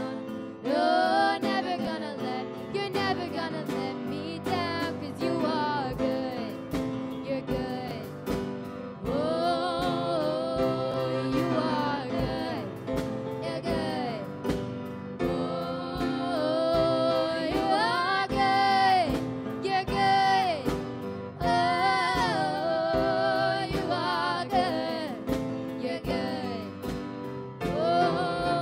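Live worship song: a woman's solo voice sings with vibrato, accompanied by piano chords and a steady drum-kit beat.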